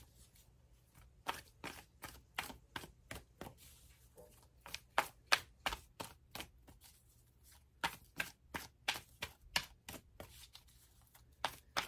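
A deck of oracle cards being shuffled hand to hand: quick, irregular card clicks and flicks in flurries, with brief pauses between them.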